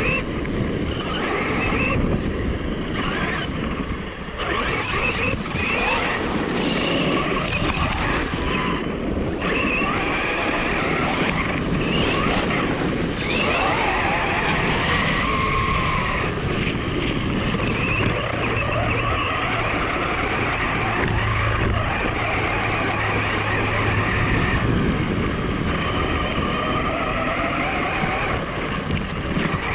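ARRMA Talion 6S RC car's brushless electric motor whining up and down with the throttle as it drives, with steady tyre noise from churning over wet, muddy dirt.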